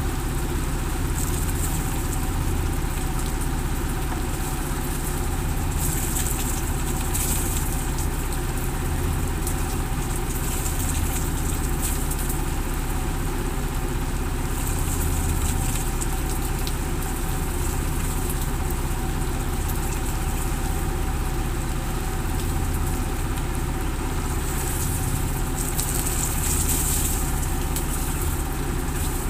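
A boat's engine running steadily at idle, with a constant hiss of rain over it.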